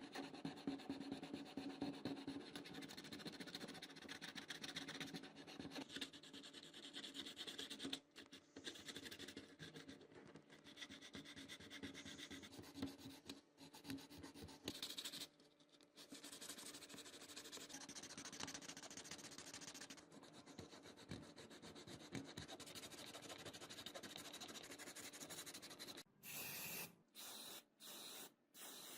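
Hand sanding of a surface: continuous rubbing strokes with short pauses, ahead of painting. Near the end, several short hissing spray blasts.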